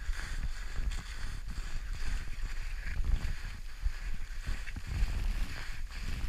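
Wind buffeting the microphone in a heavy, uneven low rumble, with irregular soft scuffs and knocks under it.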